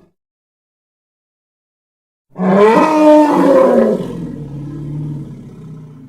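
Designed triceratops roar sound effect. It starts about two seconds in after silence: a loud bellowing cry that bends in pitch, then a lower, quieter growling tail that fades out near the end.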